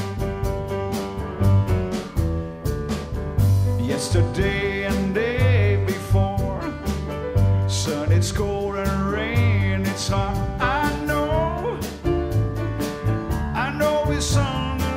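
Piano trio of piano, upright double bass and drum kit playing a rock song, with the drums keeping a steady beat of cymbal strokes and bass drum.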